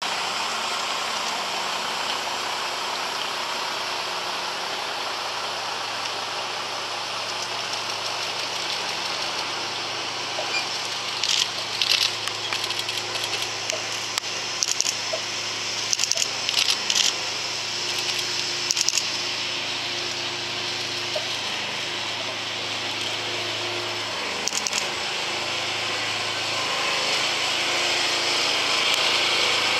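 Heavy tractor truck's diesel engine running steadily as it slowly hauls a Shinkansen N700A car on a low trailer, a steady hum with road noise that grows louder near the end as the load passes close. Several clusters of short high-pitched squeaks come through the middle.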